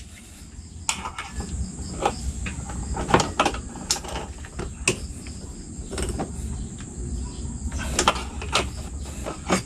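Irregular metal clicks and taps from a hand tool working on the two bolts that hold the aftermarket exhaust pipe of a Yamaha Mio Sporty scooter, as they are tightened.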